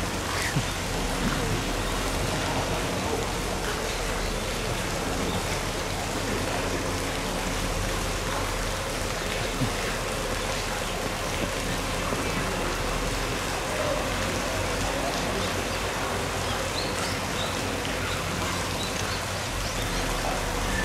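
Steady rushing, rain-like noise with a low hum underneath.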